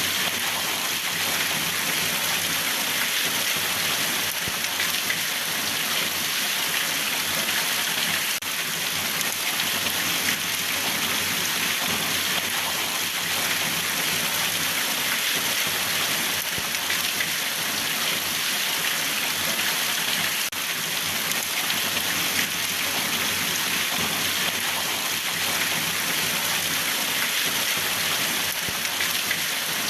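Steady rain falling and pattering on surfaces, an even hiss with no letup.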